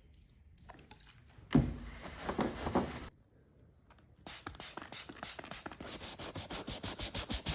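Hand rubbing or scrubbing on a leather surface: one longer rub about a second and a half in, then quick back-and-forth strokes at several a second from about halfway through.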